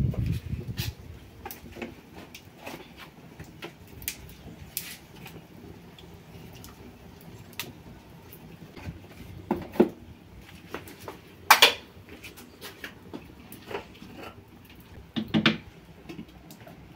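Kitchen clatter: scattered clinks and knocks of pots, lids and utensils being handled, with the loudest knocks about ten, eleven and a half, and fifteen seconds in.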